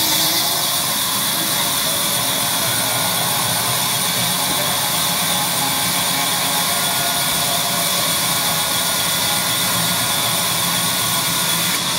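Large vertical band saw cutting lengthwise through a log as it is fed along the table, a steady, even noise with a strong high hiss.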